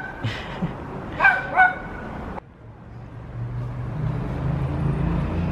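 A dog whining with two short high yips in the first couple of seconds, which its owner takes as a need to pee. About two and a half seconds in, the sound cuts suddenly to a low steady hum that grows louder.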